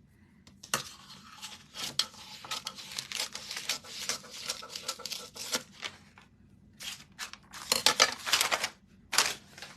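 Rustling and tearing of craft material being handled, in irregular bursts with a short lull about six seconds in; the loudest bursts come about eight seconds in.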